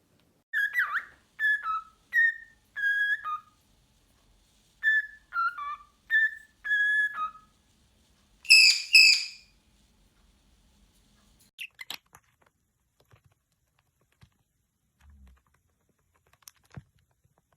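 Pet parrot whistling: two phrases of four short whistled notes, then one louder, harsher call, followed by a few faint clicks.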